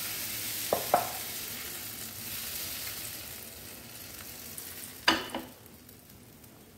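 Wheat-flour, egg and milk batter sizzling as it drips through the holes of a steel bowl onto a hot nonstick frying pan, the sizzle slowly dying down. Two light metal clinks about a second in, and a sharper clatter about five seconds in as the steel bowl is set down.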